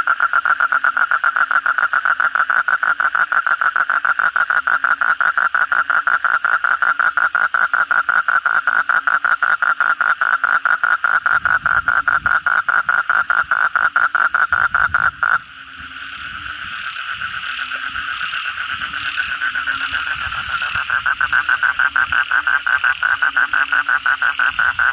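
Asian common toad (kodok bangkong) calling with its throat sac puffed out: a long, fast pulsing trill. The trill breaks off suddenly about fifteen seconds in, then starts again and builds back to full loudness.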